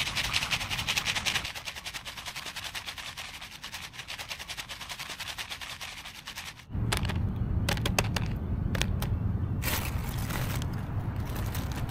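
Popcorn popping fast in a pot, many sharp pops a second. About two-thirds of the way through, it changes suddenly to a louder low rumble with fewer, scattered pops.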